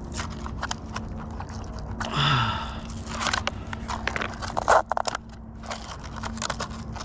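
Hands working an RC truck's battery leads and plastic chassis: irregular clicks, rattles and scrapes, with a brief hum of voice about two seconds in and a sharp, loud click just before five seconds.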